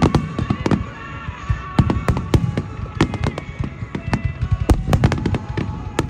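Fireworks going off in rapid succession: many sharp bangs and cracks, irregular and overlapping, with music playing underneath.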